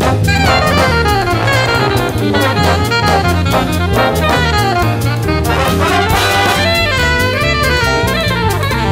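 Alto saxophone playing a fast jazz solo line full of quick runs, over a big band's bass and drum kit.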